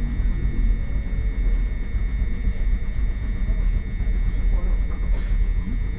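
Hankai Tramway streetcar heard from inside the car: a steady low rumble with a constant thin high electrical whine over it.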